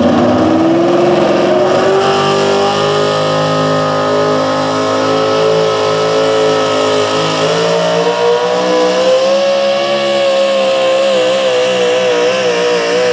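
Supercharged engine of a 4WD pulling truck at full throttle, dragging a weight-transfer sled. Its pitch climbs as the truck launches, holds high, and wavers up and down in the last few seconds as the sled's load builds.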